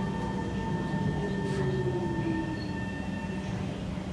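Kawasaki C151 metro train slowing along a station platform, heard from inside the car: a steady running rumble with a whine that falls in pitch as the train brakes.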